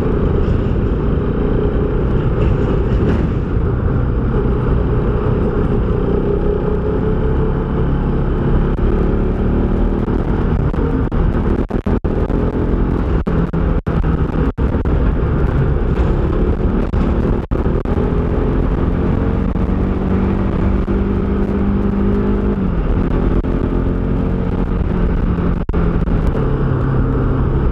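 Motorcycle engine running at cruising speed, its note slowly rising and falling with speed, under heavy wind rumble on the microphone.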